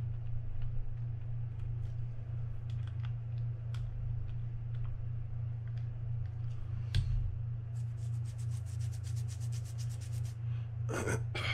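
A screwdriver turning small screws out of a Penn Spinfisher 5500SSV reel's housing: faint scraping and scattered clicks, a rapid run of about ten ticks a second for a couple of seconds, then two louder knocks near the end. A steady low hum runs underneath.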